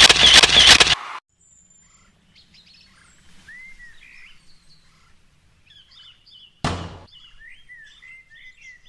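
A loud, rough burst of noise for about the first second, cutting off abruptly, followed by faint birds chirping. A single sharp thump comes about seven seconds in.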